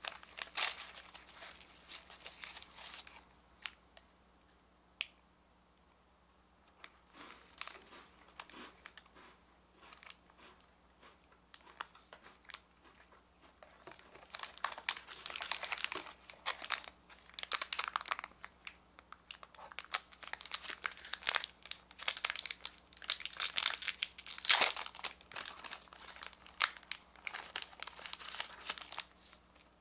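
Plastic wrappers of individual Bisco biscuit packets crinkling in the fingers as they are handled and opened. The crinkling comes in irregular bursts, with a quiet stretch a few seconds in and the loudest, densest crinkling in the second half.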